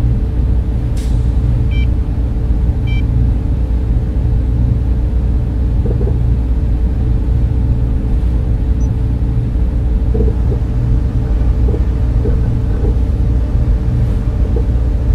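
Sci-fi spaceship interior ambience: a steady low machinery rumble and hum, with two faint short electronic beeps around two and three seconds in.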